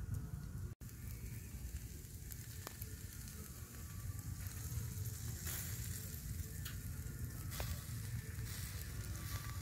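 Pork sizzling as it grills in a wire basket over hot charcoal embers, with a few small crackles.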